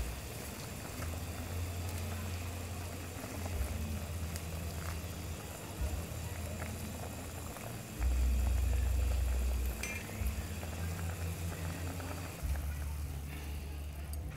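Pot of Cambodian sour beef soup at a rolling boil, bubbling steadily. A low rumble comes and goes and is loudest for a couple of seconds about eight seconds in, when a ladle stirs the pot.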